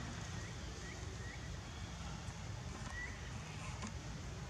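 Outdoor background with a steady low rumble and a few faint, short rising high chirps scattered through it.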